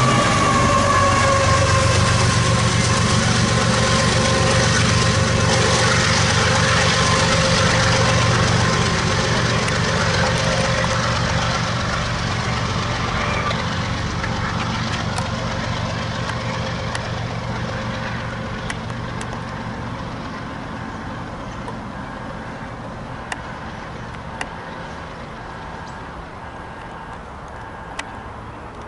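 CSX GE ES44AC-H diesel locomotive running past with a train of empty coal hoppers. A whining tone drops in pitch just after it goes by, then the engine hum and the rumble of the cars fade steadily as the train moves away, with a few faint clicks near the end.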